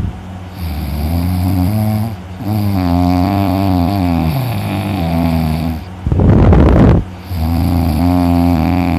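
An exhausted person snoring in deep sleep: three long, low snores, with a loud breathy rush of air between the second and third, about six seconds in.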